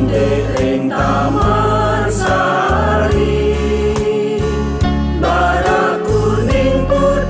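Choir of elderly men and women singing a Balinese folk song together over backing music, with held bass notes and a steady ticking beat.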